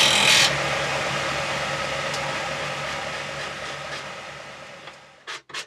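Axminster Hobby Series disc sander: the grinding of wood on the disc stops about half a second in, and the motor and disc spin down with a steady hum that fades over about five seconds. Near the end, quick rubbing strokes of hand-sanding a small birch-ply strip begin.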